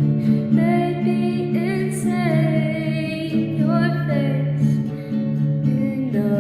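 A singing voice over acoustic guitar, holding and sliding between long notes above steady chords.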